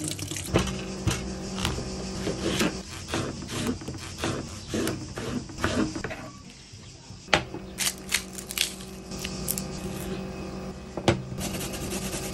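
Kitchen knife cutting tomatoes on a wooden chopping board, with sharp knocks about twice a second, then a few separate knocks. Near the end, garlic rubbed on a metal box grater makes a dense, fine scraping. A steady low hum runs underneath.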